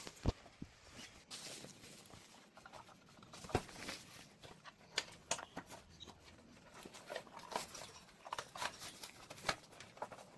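Scattered light clicks, taps and rustling as a portable clothes dryer is handled and assembled.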